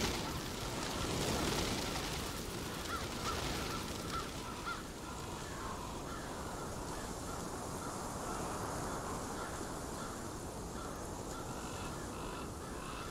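Crows cawing repeatedly over a steady wind-like rushing ambience, the caws bunched around three to five seconds in and fainter near the end.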